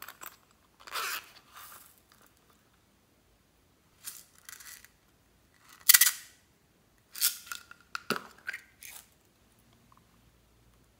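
Small plastic toys and containers being handled: scattered rustles and scrapes, and several sharp clicks, the loudest about six seconds in, with a quick run of clicks and rattles soon after.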